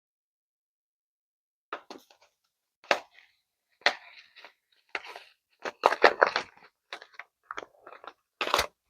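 Mylar food-storage bags crinkling and crackling as they are handled, in irregular bursts that start about two seconds in.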